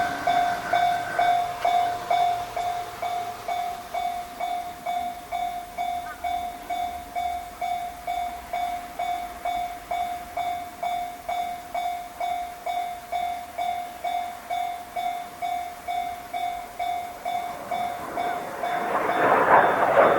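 Level-crossing warning bell ringing in an even ding about twice a second. About eighteen seconds in, the rushing noise of an approaching JR Kyushu 817-series electric train rises under it and grows loud.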